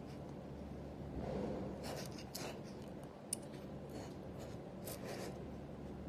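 Stainless steel toilet-partition gravity hinge being swung open and shut by hand: metal scraping and rubbing in a few short strokes, with one sharp click a little past the middle.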